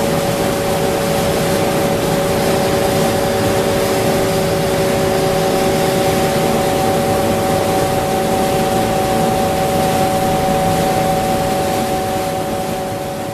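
Film winder of a high-speed PVC cling film cast line running: a steady machine hiss with a constant multi-tone hum, fading out near the end.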